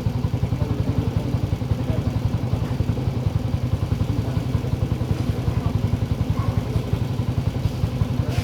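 Yamaha Mio i 125 scooter's single-cylinder four-stroke engine idling steadily with an even, rapid putter, running after its top overhaul.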